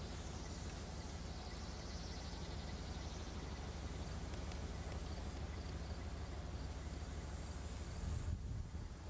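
Insects chirring at a high pitch in long stretches that stop and start again, over a steady low rumble.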